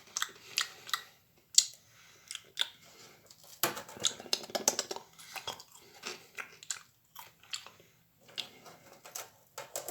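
Mouth chewing and biting a piece of over-microwaved, burnt marshmallow, with many short irregular clicks and crackles, busiest about four seconds in.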